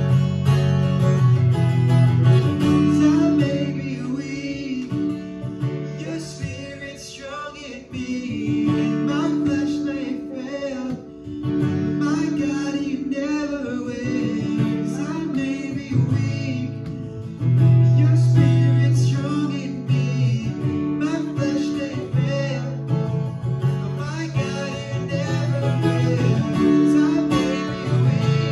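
Worship song: a man singing solo to his own strummed acoustic guitar.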